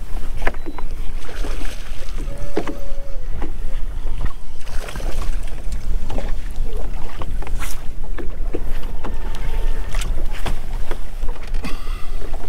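Wind buffeting the microphone on an open bass boat, with waves slapping the hull and scattered short clicks and knocks throughout.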